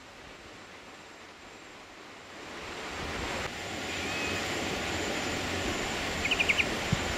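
Steady outdoor rushing noise that grows louder about halfway through, with a brief quick run of high chirps and a single thump near the end.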